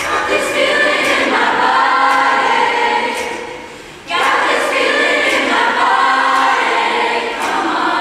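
Mixed youth choir of boys' and girls' voices singing a pop song without accompaniment, in two phrases with a short fade and break about four seconds in.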